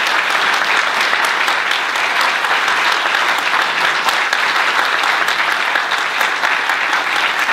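Audience applauding steadily, a dense round of many hands clapping.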